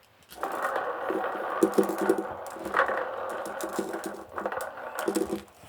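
Many marbles clattering and rolling against cardboard as they are loaded into a homemade cardboard marble gun: a dense rattle with sharper clicks, starting about half a second in and stopping shortly before the end.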